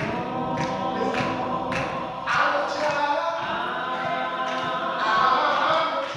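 Gospel group singing a song together in harmony. Sharp beats, such as handclaps or drum hits, land a little under twice a second through the first half.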